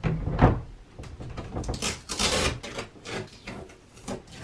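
Stickers being picked and peeled off a painted closet door by hand: a dull knock of the hand against the door near the start, then fingernail scratching and rubbing with a longer scraping rip about two seconds in.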